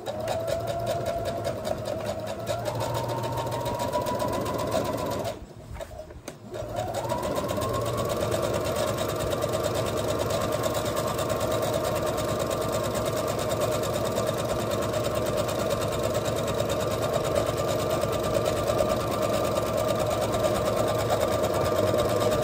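Computerized sewing machine stitching a seam, speeding up early on, stopping for about a second some five seconds in, then starting again and running steadily on. It is the first pass of a French seam, wrong sides together, at a half-inch seam allowance.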